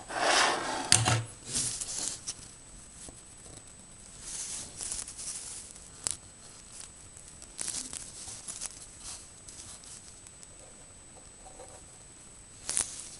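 Handling noise as a perfboard is turned in the fingers: bursts of rustling and scraping, loudest in the first two seconds, with a few sharp clicks along the way.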